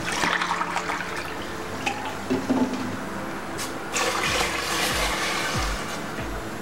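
Water poured from a cup into a metal cooking pot, splashing as it lands in the shallow water already there. It comes in two pours: one at the start and a second about four seconds in.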